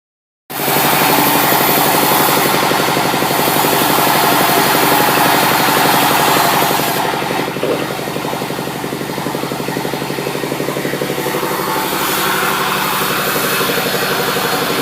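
Sawmill machinery running steadily while sawing sengon (albizia) wood, a motor-driven hum with a fast, even pulsing. The brighter cutting noise is strongest at first and eases off about seven seconds in.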